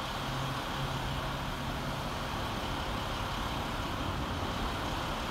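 Crane truck's engine running steadily as it powers the hydraulic boom, heard as a low hum, clearest in the first half, under a constant outdoor hiss of engine and traffic noise.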